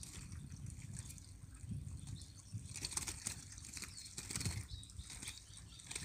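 A brambling held in the palm stirring, with a few brief wing flutters and rustles about halfway through and near the end, over a steady low rumble.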